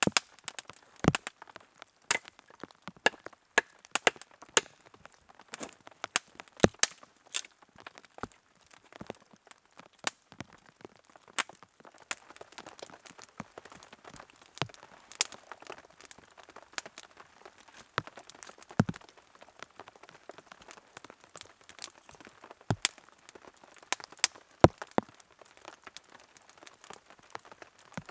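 Small campfire of dry twigs and sticks crackling, with sharp irregular pops and snaps a few times a second over a faint hiss.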